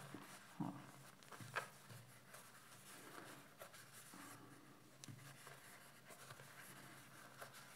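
Faint, soft rustling and scratching of a crochet hook pulling thick T-shirt yarn through stitches, a few light strokes at irregular intervals.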